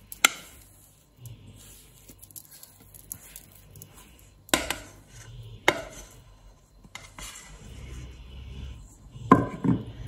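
A spatula scraping thick icing out of a stainless steel saucepan onto a tart, with a few sharp metal knocks of spatula against pan and a louder cluster of knocks near the end.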